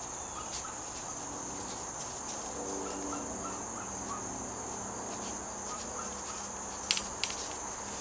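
Steady high-pitched buzz of insects, with faint short calls in the background and two sharp clicks near the end.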